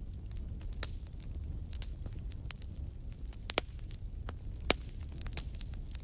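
Wood fire burning down to glowing embers, crackling with scattered sharp pops, a few of them louder, over a low steady rumble.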